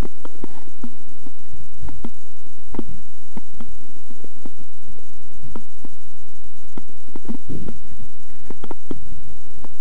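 Handling noise from a small body-worn action camera as its wearer moves across rough ground: irregular knocks and clicks, one or two a second, over a low rumble that swells a few times.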